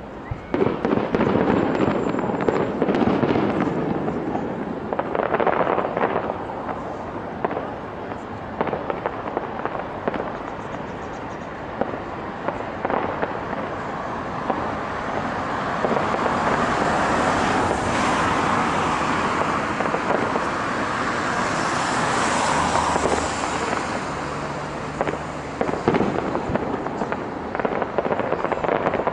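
Fireworks display: aerial shells bursting one after another with bangs and crackle. It starts suddenly about half a second in and thickens to a dense run of crackling in the middle.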